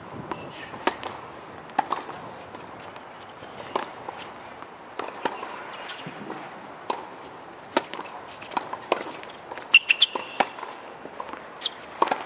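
Tennis balls struck by rackets and bouncing on a hard court: a string of sharp pops at uneven intervals, with a quick cluster of louder ones about ten seconds in.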